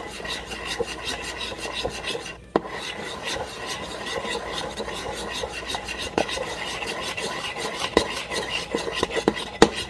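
Metal spoon stirring a thick chocolate ganache around a bowl to work in the butter: a quick, even scraping rasp with a short pause about two and a half seconds in, and a few sharper clinks of the spoon against the bowl.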